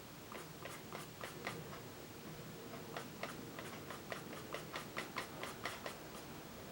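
Pastel pencil making short, quick strokes on textured mixed-media paper, heard as faint, irregular ticks at about three to four a second.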